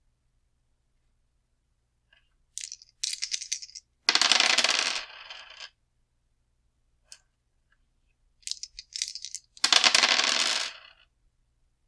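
Dice shaken with a light, high rattle, then thrown and clattering as they roll to a stop; the shake-and-roll happens twice.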